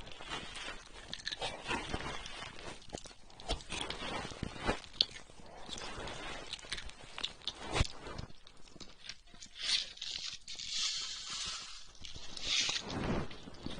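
ASMR ear massage on a binaural microphone: fingers rubbing aloe gel over the mic's ear, giving close, irregular crackling and squishing. A breathy hiss runs from about ten to thirteen seconds in.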